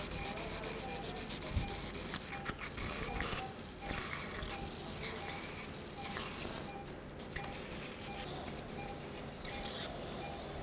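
Surgical suction and irrigation working in the nose during endoscopic sinus surgery: an uneven hiss with sputtering and scraping as fluid and debris are drawn off. A patient monitor beeps steadily and faintly.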